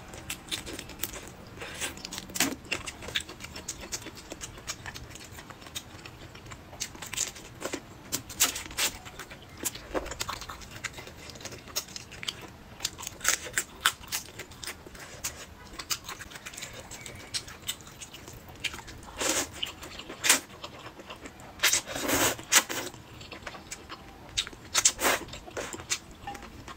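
Close-up mouth sounds of a person eating spicy noodles: chewing, wet lip smacks and slurps of noodles, as irregular short clicks with a cluster of louder slurps and smacks about three-quarters of the way through.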